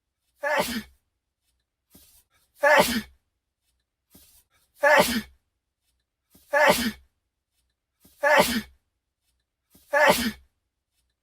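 A young man sneezing, a short sneeze repeated six times about two seconds apart, each one nearly identical, with a faint breath in just before it and silence in between.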